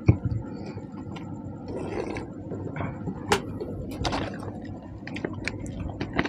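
Eating sounds: fingers squishing and scraping watery fermented rice on a plate, with a thump just after the start and scattered sharp clicks.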